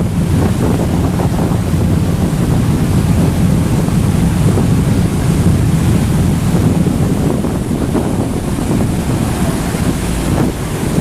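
Wind buffeting the microphone on a moving passenger ferry, over a steady low rumble of the ferry under way and water washing past the hull.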